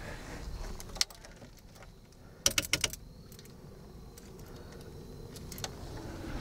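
A single sharp click about a second in, then a quick run of about six sharp clicks and knocks near the middle, over low steady background noise; no engine running.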